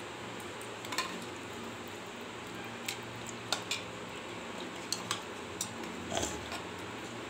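A serving spoon clinking and scraping against a ceramic bowl as chicken curry with potatoes is ladled in: several light, separate clinks spread through, over a steady low hum.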